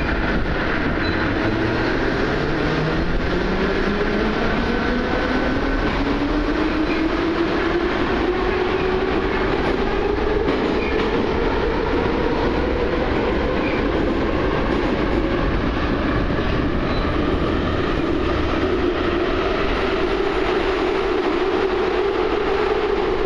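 Heard from inside the car, a Moscow Metro 81-714 motor car's traction motors whine, rising steadily in pitch over about the first ten seconds as the train gathers speed. The whine then holds near one pitch over the continuous rumble of wheels on rails.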